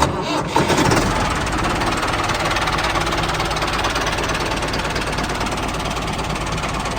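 A small motor running steadily with a fast, even rattle, like a miniature engine or motorised machine.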